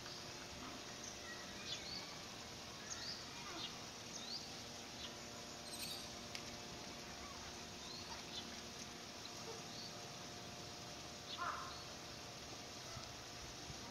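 Outdoor ambience: small birds give scattered short, rising chirps over a faint steady hum, with one louder, lower call about eleven seconds in.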